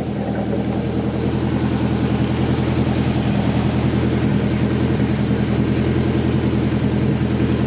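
Turbocharged Honda S2000 four-cylinder engine idling steadily with an even, rapid flutter, a little louder after the first couple of seconds. It runs smoothly on freshly replaced injector seals.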